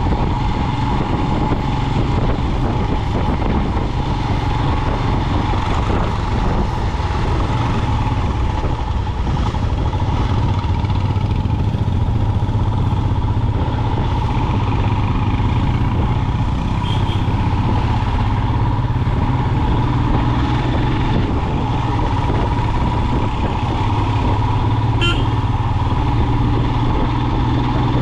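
A motor vehicle running steadily on the move: engine and road noise with a constant hum. A short high chirp sounds once near the end.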